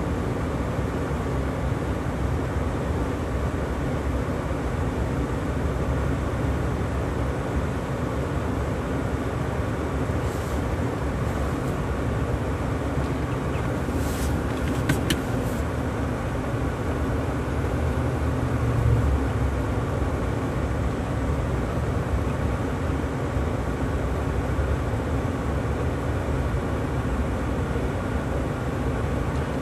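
Truck's engine and tyres rumbling steadily inside the cab while driving on snow, with a few short clicks about halfway through and a brief low swell a little later.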